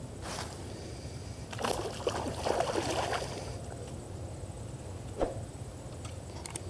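Water splashing as a hooked fish thrashes at the surface close to the bank, in a burst of about a second and a half a little way in, over a steady low rumble.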